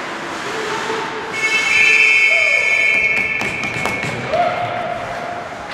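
One shrill, steady signal blast in an ice hockey rink, starting about a second in and lasting about a second and a half. Shouted voices and a few sharp knocks are heard around it.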